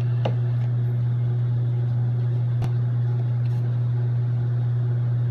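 A steady low hum, with two faint clicks of playing cards being handled, one just after the start and one about halfway.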